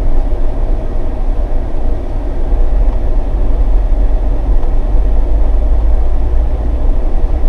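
Off-road vehicle driving slowly over a rough dirt trail, heard from inside the cab: a steady low rumble of engine and tyres.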